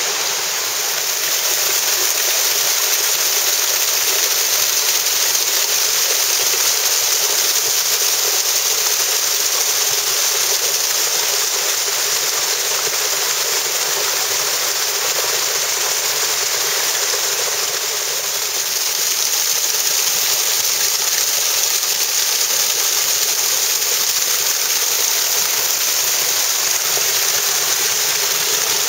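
Small mountain waterfall pouring over rocks close by: a steady rush of falling and splashing water.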